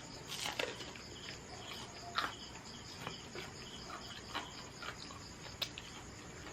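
Insects chirping steadily in the background, a repeated high chirp, with a few scattered soft clicks and crunches of someone eating crispy fried food.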